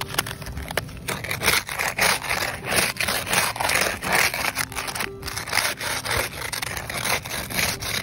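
Ice scraper scraping snow and frost off a car windshield in quick repeated strokes, about two a second, starting about a second in.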